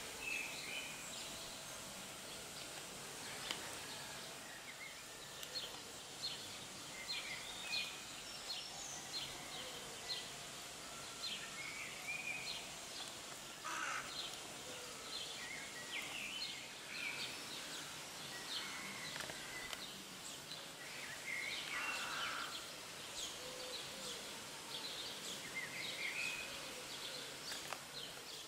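Outdoor ambience: a steady background hiss with many short bird chirps and calls scattered throughout.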